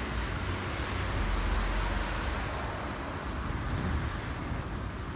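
Steady outdoor ambience of distant road traffic, an even hiss over a low, uneven rumble.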